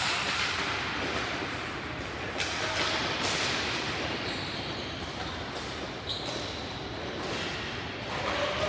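Ball hockey play in a large indoor rink: a steady wash of rink noise with scattered knocks and thumps of sticks, the ball and the boards.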